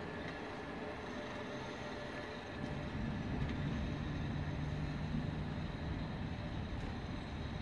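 Passenger train pulling away along the track: a steady low rumble of wheels and the distant locomotive, which grows louder about two and a half seconds in.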